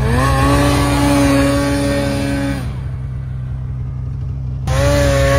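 Polaris RMK Khaos two-stroke mountain snowmobile revving hard and holding on the throttle as it climbs a steep slope, then backing off for about two seconds and revving up again near the end. A steady low engine drone runs underneath.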